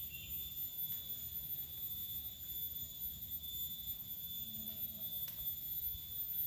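Steady high-pitched insect drone over a low rumble, with one faint click about five seconds in.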